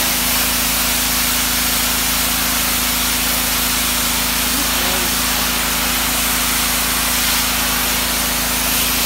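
Ryobi 2900 psi gas pressure washer spraying a high-pressure jet of water onto a concrete driveway: a loud, steady hiss of the spray striking the concrete, with the engine's steady hum beneath it.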